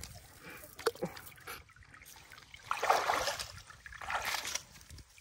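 Feet sloshing through shallow muddy water, with two louder splashing steps about three and four seconds in, and water trickling off a wet cast net.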